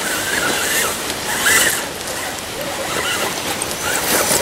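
Wind buffeting the camera microphone: a steady rushing noise that swells in gusts about a second and a half in and again near the end. A few short wavering high tones can be heard under it.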